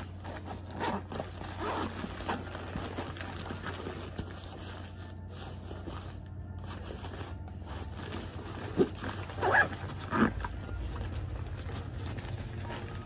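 Zippers on a Jack Wolfskin New York 2-in-1 flip bag being pulled open and shut, with the nylon fabric rustling and scraping as the bag is handled. Several short zip strokes come early on, and three sharper, louder ones come about two-thirds of the way through.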